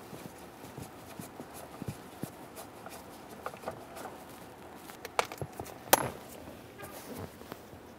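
Phillips screwdriver backing screws out of a plastic steering column shroud: scattered small clicks and taps of metal on plastic, the sharpest about five and six seconds in.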